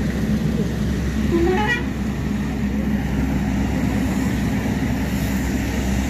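A vehicle or machinery engine running steadily with a low hum. A brief, sharply rising whistle-like tone sounds about a second and a half in.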